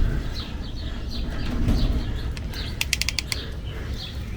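Hand pop-rivet gun being squeezed to set a rivet in thin sheet metal: a quick run of about six sharp metallic clicks a little under three seconds in, over a low wind rumble on the microphone.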